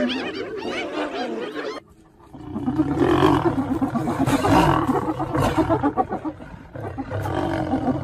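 A high, wavering sound cuts off abruptly, and then a lion gives a deep, rapidly pulsing growl. It starts about two seconds in, eases briefly near the end and picks up again.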